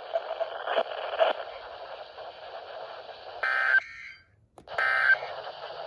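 NOAA Weather Radio receiver playing hissy static for about three seconds, then two short blasts of buzzy digital data tone about a second apart, with a moment of dead air between them. These are SAME end-of-message tones closing the weekly test transmission.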